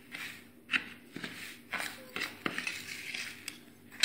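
Steel spoon stirring coarse sugar and spices in a stainless steel dish. It scrapes and clinks against the metal in irregular strokes.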